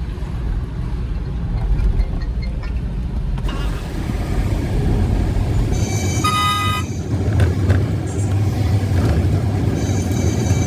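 Loaded truck driving on the road: steady engine and road rumble, with a vehicle horn sounding for about a second just past the middle.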